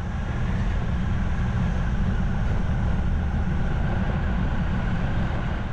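Triumph Tiger 1200 motorcycle moving at low speed, its inline three-cylinder engine running steadily under a constant low rumble of engine and road noise.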